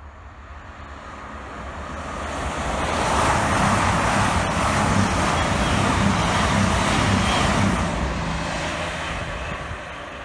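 Two coupled Voyager diesel-electric multiple units, class 220 and class 221, passing by. The underfloor diesel engines drone under a rush of wheel and air noise, which swells over about three seconds, holds for about five, then fades.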